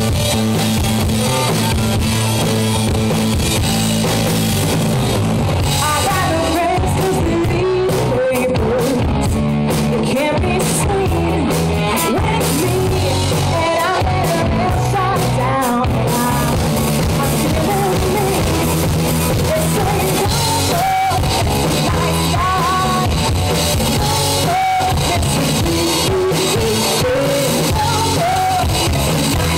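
Live rock band playing: electric guitar and drum kit with a lead vocal that comes in about six seconds in.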